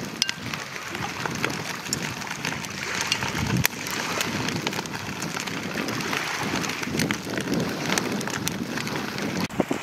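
Sea urchins in their shells sizzling on a charcoal grill, a steady hiss with many small sharp crackles and pops scattered through it.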